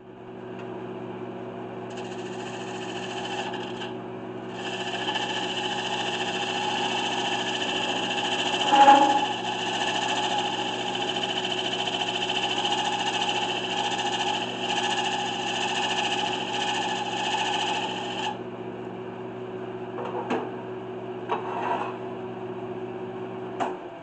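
Wood lathe motor humming steadily while a turning tool cuts into the inside rim of a spinning black walnut jar blank. The hiss of cutting runs for most of the time and stops about three quarters of the way in. There is one louder knock near the middle, and a few light taps follow once the cutting has stopped.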